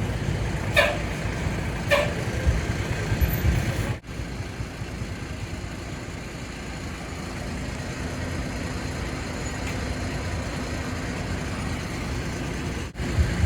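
A bus engine running steadily, with two short sharp sounds about one and two seconds in.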